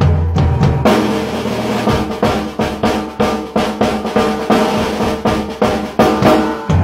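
Drum kit played in a fast, dense pattern of snare, tom and bass drum strokes. About a second in, cymbals come in and ring over the hits until near the end, when heavy bass drum takes over again.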